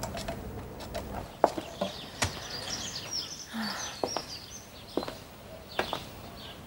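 Garden birds chirping and twittering, with several separate sharp clicks over a low outdoor background.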